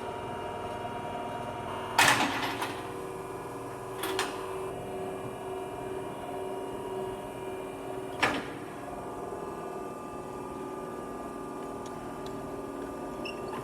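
Diacro hydraulic CNC bender running with a steady hum while it bends a rod, with sharp metallic clanks about two, four and eight seconds in, the first the loudest.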